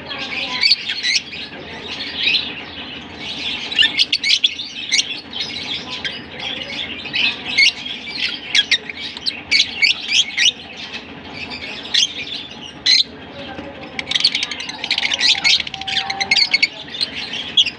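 A flock of lovebirds, masked and Fischer's lovebirds, chattering all at once: a constant stream of short, shrill chirps and squawks from many birds, with no pause.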